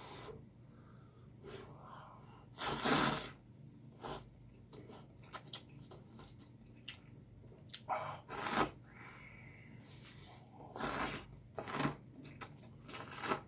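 A man slurping ramyeon noodles off chopsticks: several short, noisy sucking slurps, the loudest about 3 seconds in, with faint chewing and small clicks between. Near the end he sips broth from a metal bowl.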